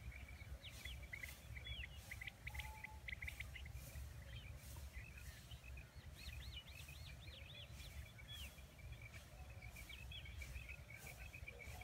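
Birds chirping in quick, repeated short calls, over a low steady rumble of outdoor noise.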